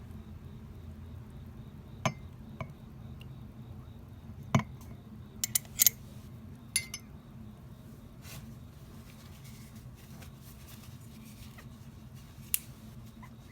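Spoon clinking against glassware: scattered single clinks with a quick cluster about halfway through, over a steady low hum.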